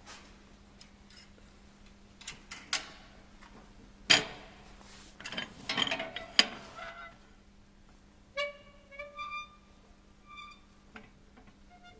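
Scattered metal knocks and clanks, the loudest about four and six seconds in, then a few short, high squeaky tones.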